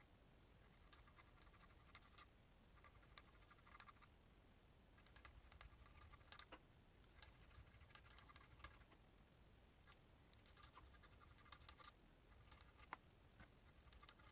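Faint rasping of a hand file on the steel sole edge of a Callaway wedge, in runs of short back-and-forth strokes with pauses between them, smoothing down a sharp edge raised by a dent.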